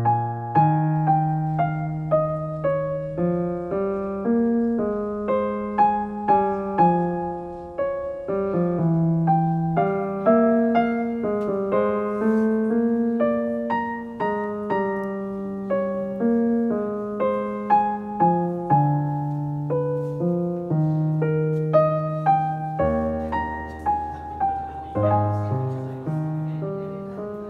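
Background piano music: a slow, calm piece of struck notes over a steady bass line.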